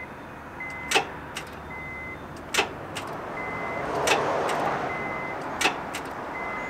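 2009 Honda Civic's open-door chime beeping steadily about once a second while the key is turned, and three loud clunks from the starter as it engages against an engine that will not turn over, which the owner takes for a seized, locked-up engine after it lost its oil.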